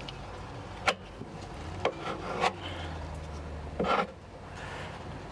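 Putty knife spreading epoxy fairing compound on plywood edges: a sharp knock about a second in, then a few short scraping strokes, the longest near four seconds.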